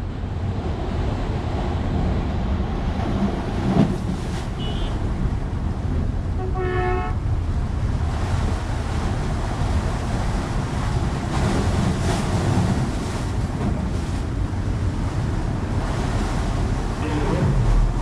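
Wind buffeting the microphone over the steady wash of sea water, with one short pitched call or toot about seven seconds in.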